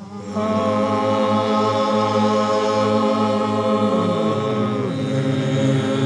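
Slow chanted singing: long held vocal notes over a steady low sustained tone, entering just after the start and stepping down to a lower pitch about four to five seconds in.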